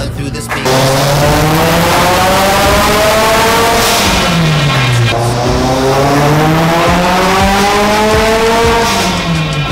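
Subaru WRX STi's turbocharged flat-four engine revving hard under load on a chassis dynamometer. Its pitch climbs steadily for about three seconds, drops back around the middle, climbs again, then falls away near the end.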